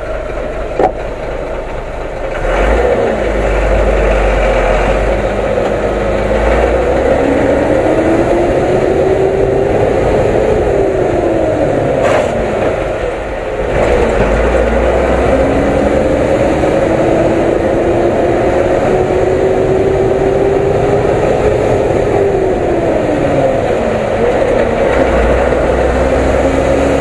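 Ashok Leyland 2516 truck's diesel engine, heard from inside the cab, pulling away and accelerating through the gears: its note climbs, drops at gear changes about 12 and 23 seconds in, then climbs again. The cab is very noisy, and a sharp knock comes about a second in.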